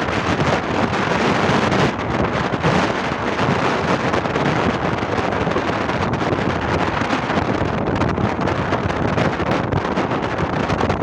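Steady loud wind rush buffeting the microphone on a moving vehicle, with vehicle noise beneath it.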